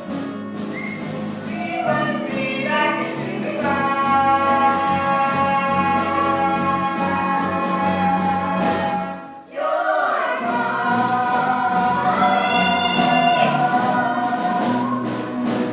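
Musical-theatre song: voices singing long held notes over instrumental accompaniment, with a brief break about nine and a half seconds in before the singing resumes.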